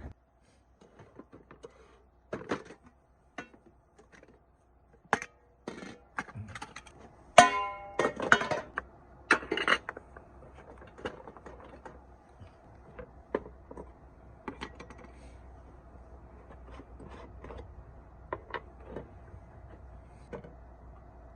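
Scattered knocks and clicks from objects being handled, with a ringing metallic clank about seven seconds in and a cluster of louder clatters just after; in the second half only occasional faint clicks over a steady low hum.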